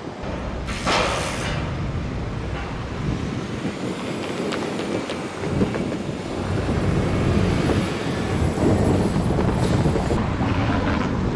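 Street traffic: vehicles passing with a steady rumble, and a short hiss about a second in.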